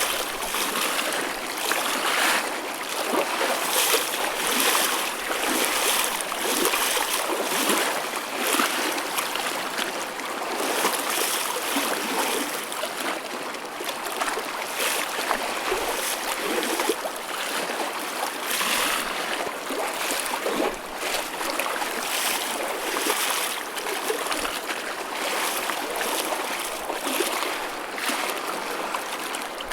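Choppy ocean waves, a continuous wash of water with frequent small splashes and slaps of chop.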